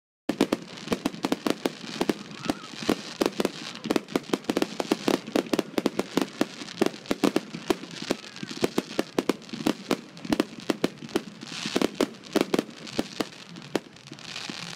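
Aerial fireworks bursting in quick succession: a dense string of sharp bangs and crackles, many a second.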